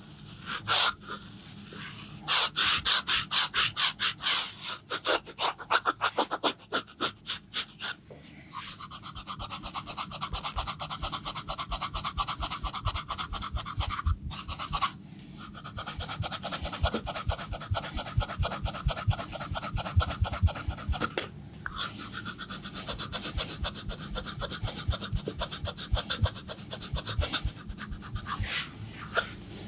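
A barber's hands massaging a customer: a run of quick, loud slaps or pats starting about two seconds in, then a long stretch of brisk, rhythmic rubbing on the skin.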